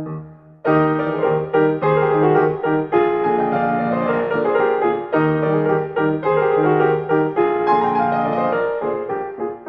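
Background piano music, a steady run of notes, with a brief pause just before a second in.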